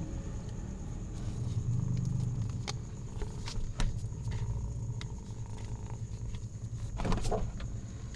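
Tabby kitten moving about on paper, making scattered light taps and rustles, and giving a short mew about seven seconds in, over a steady low background rumble.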